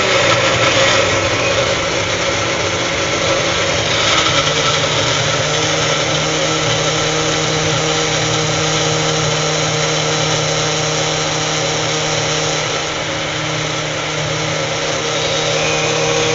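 Elite personal bullet-style blender running steadily as its cup is held pressed down, blending fruit and juice into a smoothie. The motor dips slightly a few seconds before the end, then picks up again.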